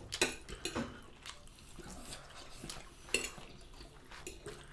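A metal fork tapping and scraping on a ceramic dinner plate while food is eaten: scattered light clinks, the sharpest about three seconds in.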